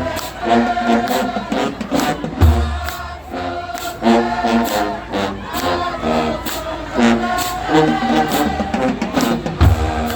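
High school marching band playing a school song, with many voices singing along in chorus over a steady drum beat. Deep bass-drum booms land about two and a half seconds in and again near the end.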